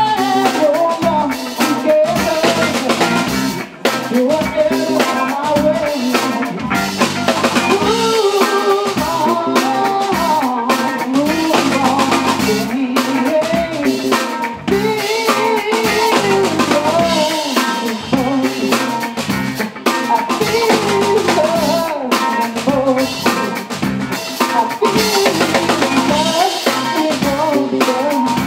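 Live band playing: a man singing lead over electric guitar, bass guitar and a Ludwig drum kit with a steady beat.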